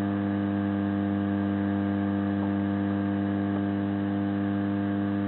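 Lukey 852D hot-air soldering station running at maximum air, giving a steady, unchanging hum.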